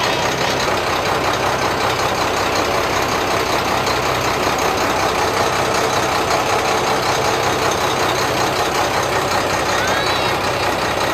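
River passenger launch's engine running steadily, a constant drone with a low hum, with faint voices in the background.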